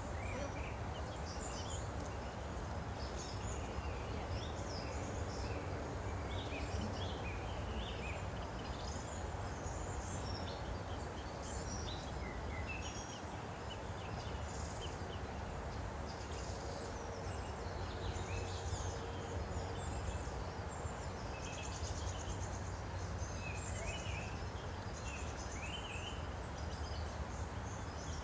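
Woodland birds chirping and singing, many short calls overlapping, over the steady rush of a flowing stream.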